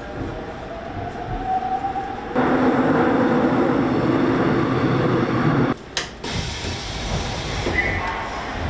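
Subway train running, heard from inside the passenger car: a steady rumble with a faint whine rising over the first two seconds, growing louder at about two and a half seconds. It cuts off abruptly just before six seconds and resumes a little quieter.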